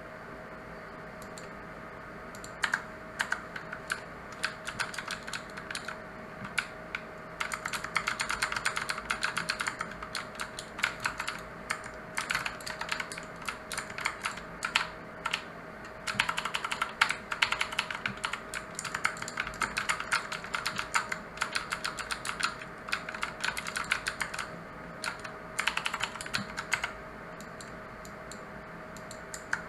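Mechanical keyboard with blue switches being typed on: runs of sharp, clicky keystrokes that start about two seconds in, come in fast bursts through the middle and thin out near the end. A faint steady hum sits underneath.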